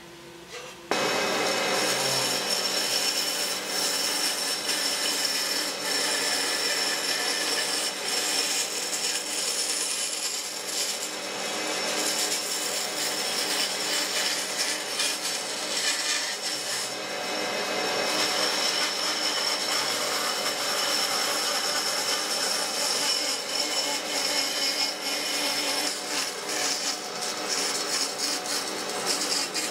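Band saw cutting a curve through a thick pine board: the saw runs steadily with a constant whine while the blade rasps through the wood. The sound starts abruptly about a second in.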